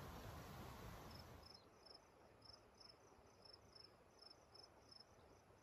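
Near silence: a faint steady hiss gives way, about a second and a half in, to faint high cricket chirps repeating evenly about three times a second.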